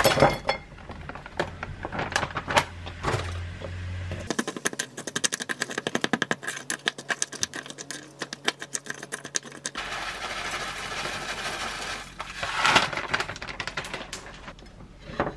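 Frozen blueberries tipped from a plastic bag into an enamel bowl of Greek yogurt, then a fast, even clatter of a spoon stirring and scraping in the bowl. Near the end comes a rattle as granola is sprinkled in.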